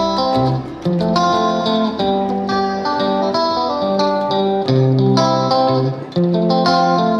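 Background music: a plucked guitar playing a melody of notes that change about every second.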